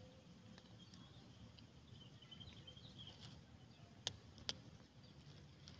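Faint crunching and clicking of a cat eating dry kibble from a plastic tray, with two sharper clicks about four seconds in.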